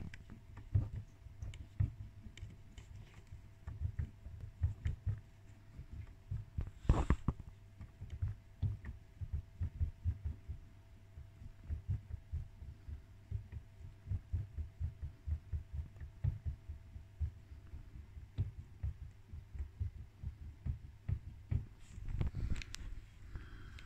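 Dull low knocks, irregular and about two or three a second, from a Creality CR-6's Y-axis bed carriage being rocked on its rollers, which are slightly loose. A faint steady whine runs under them and stops about three quarters of the way through.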